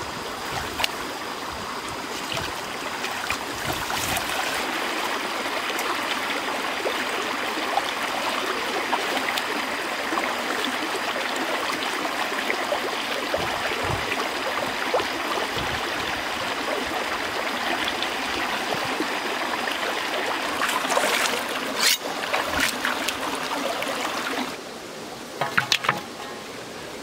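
Shallow stream running over rocks: a steady rush and splash of water. About three-quarters of the way through it drops away, leaving a few short sharp knocks.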